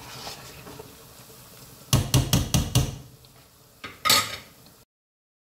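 A stirring utensil knocks against the cooking pot about five times in quick succession, then twice more a couple of seconds later, while chopped garlic fries in deep oil with a faint sizzle underneath. The sound then cuts off abruptly.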